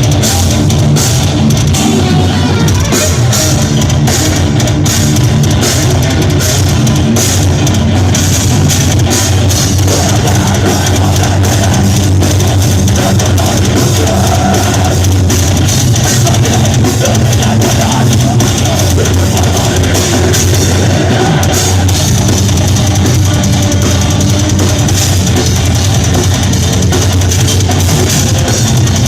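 Death metal band playing live, with a drum kit and distorted electric guitars, loud and dense without a break.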